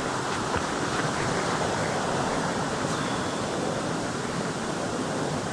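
Waterfall running full after rain: a steady rush of falling water.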